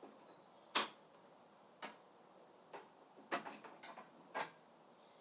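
A handful of sharp clicks and knocks from parts of a table saw being handled. The loudest comes about a second in, and a quick cluster follows about three and a half seconds in.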